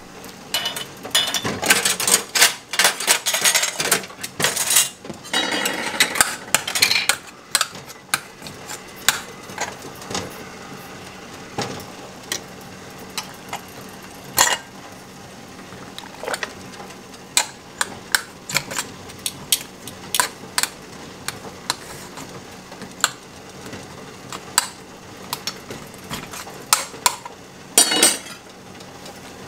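Metal ladle and spoon clinking and scraping against a stainless steel stockpot, an aluminum canning funnel and glass canning jars as pickles are ladled into the jars. The clatter is dense for the first several seconds, then thins to scattered single clinks.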